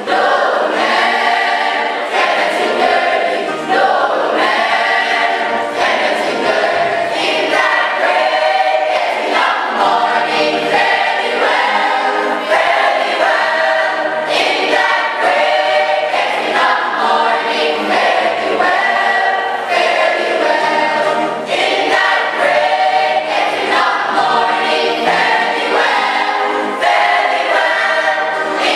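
A church choir singing a gospel song, continuous and loud.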